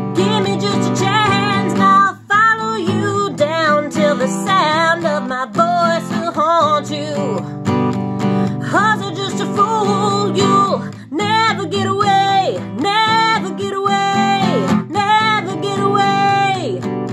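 A woman singing in long, wavering phrases over a strummed steel-string acoustic guitar.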